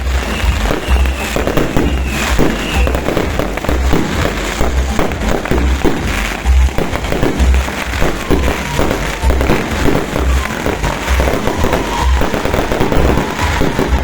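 Fireworks going off in a dense, continuous crackle of many quick pops, over music with a steady low beat.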